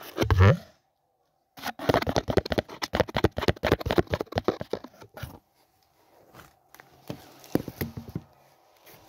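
Cardboard boxes being handled for ASMR: a thump just after the start, then a dense run of rapid crackly scrapes and taps on the cardboard for a few seconds, followed by a few scattered softer taps.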